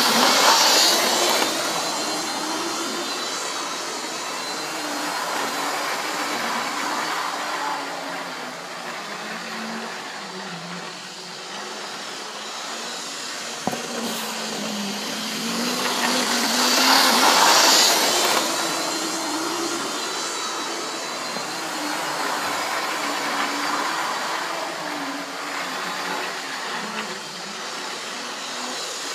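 Two Lima model Class 47 diesel locomotives running round a model railway layout: a steady electric motor and gear whine that grows loud as the pair passes close, at the start and again about 17 seconds in. A single sharp click about 14 seconds in.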